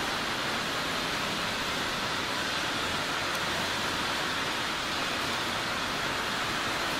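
A steady rushing noise with no pitch or rhythm, strongest in the middle and upper range, holding at one level throughout.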